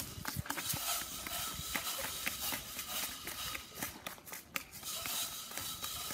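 Outdoor ambience on an asphalt court: scattered footsteps and scuffs, heard as irregular short taps over a steady hiss.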